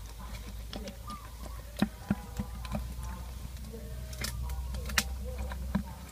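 Live snakeheads and catfish shifting in a plastic bucket: a handful of sharp taps and clicks against the bucket, the loudest about five seconds in, over a steady low rumble.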